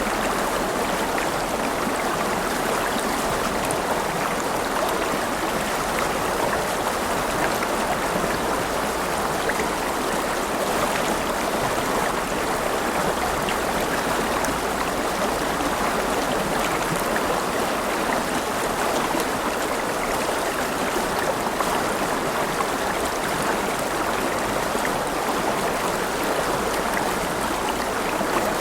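A river flowing over stones: a steady, continuous rush of water with fine trickling and splashing.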